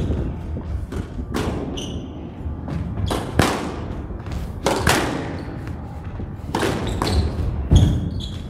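A squash rally: the ball being struck by rackets and smacking off the court walls, sharp hits every second or two, often in quick pairs.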